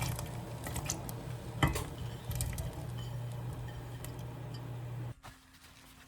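A steady low mechanical hum, like a running kitchen appliance, that cuts off suddenly about five seconds in, with dishes and utensils clinking and clattering over it, one clink louder than the rest about a second and a half in.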